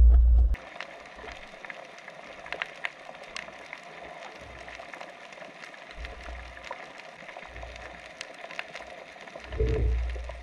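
Underwater coral-reef ambience: a dense, steady crackle of many small clicks, typical of snapping shrimp, heard through the camera's housing. A loud low rumble cuts off about half a second in, and a few low water swells come and go, the strongest near the end.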